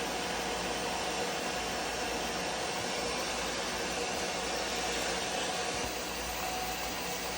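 Bissell Little Green Max Pet portable carpet and upholstery spot cleaner running steadily, its suction motor giving an even rushing hum with a faint steady whine.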